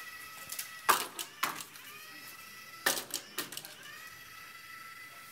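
A small wheeled lab robot's electric gearmotors whining: the pitch rises briefly as they spin up, then holds steady. The whine breaks off several times for sharp knocks and clicks as the robot bumps into the wooden obstacles, about one second in and again around three seconds in.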